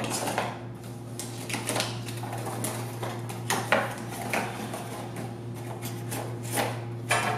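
A cardboard box being handled and its end flap worked open by hand: scattered scrapes, taps and rustles over a steady low hum.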